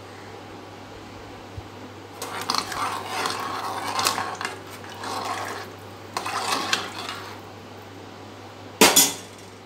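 Steel ladle stirring and scraping through watery pigeon-pea and vegetable curry in an aluminium pressure cooker, the liquid sloshing, in two stretches. Near the end comes one sharp, loud metallic clank of the ladle against the pot.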